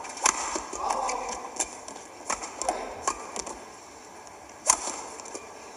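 Badminton rally: a string of sharp racket strikes on the shuttlecock, one every second or so, the loudest near the end.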